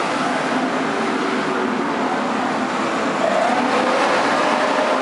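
Brick-making machine running, a steady mechanical din with a faint whine in it, getting a little louder about three seconds in.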